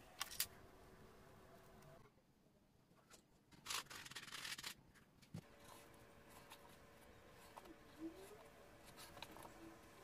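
Faint handling of leather pieces on a cutting mat: a few small clicks near the start, then a rasping rub lasting about a second a little under four seconds in, and a single light tick soon after.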